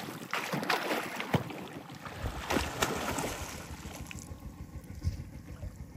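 Water splashing and churning in a flowing canal: sharp splashes through the first couple of seconds, then a lower, steadier rush with wind buffeting the microphone.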